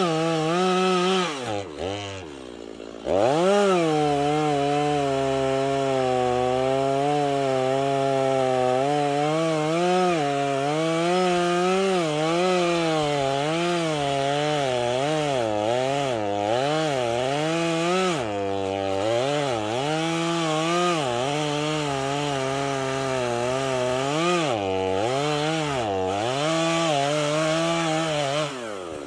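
Chainsaw cutting into the trunk of a standing tree, its engine pitch rising and falling as the chain bites and frees in the wood. About two seconds in the throttle drops briefly toward idle, then the saw revs back up, and near the end it drops back toward idle.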